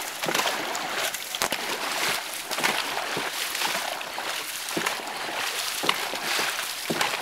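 Dragon boat paddles driving through the water in unison, each stroke a short splash about once a second, over a steady wash of sloshing water along the hull.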